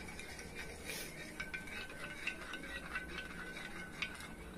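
Blue plastic spoon stirring salt into water in a glass bowl, with a quick run of small scrapes and clicks against the glass. The salt is still dissolving and the brine is still cloudy.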